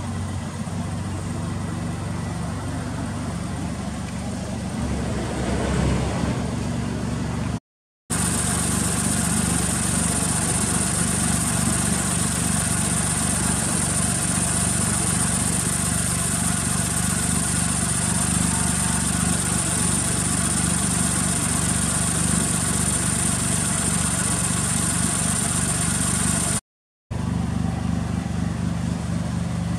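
Suzuki Cappuccino's K6A 658 cc turbocharged three-cylinder engine idling steadily through an aftermarket muffler. A steady high whine sits over it through the long middle stretch, and the sound drops out briefly twice.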